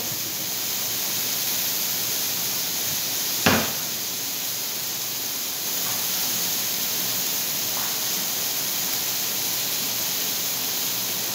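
Chicken pieces sizzling on a hot steel plate over a gas burner, a steady hiss. A single sharp knock comes about three and a half seconds in.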